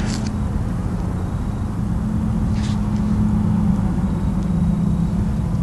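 Steady low mechanical rumble carrying a constant low hum, without change.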